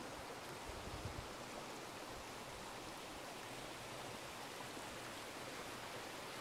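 Faint, steady hiss of outdoor background noise with no distinct sounds in it.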